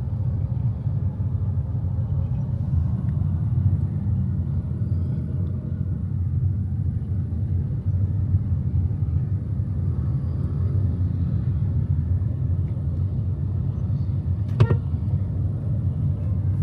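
Steady low rumble of a car driving in slow city traffic, with one brief sharp sound near the end.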